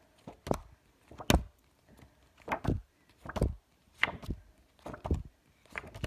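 Short, sharp knocks or taps, about one every second, from paper flashcards being handled and tapped.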